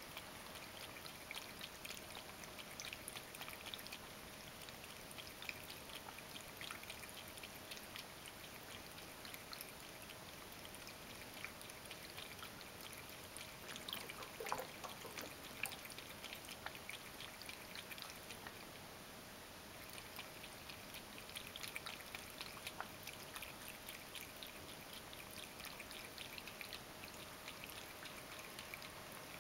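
Ragdoll cat lapping water from a bowl, a quick run of small wet licking clicks that eases off for a moment about two-thirds of the way through.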